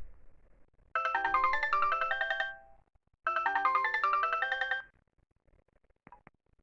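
Sony Ericsson J120i mobile phone playing a polyphonic ringtone: a short, bright synthesized melody phrase played twice with a brief gap between. A low thump at the very start and two faint clicks near the end.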